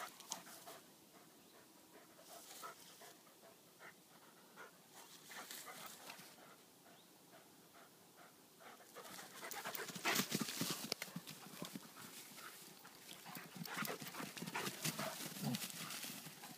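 A Dobermann and an Irish Wolfhound puppy panting after rough play. Louder bursts of rustling noise come about ten seconds in and again near the end.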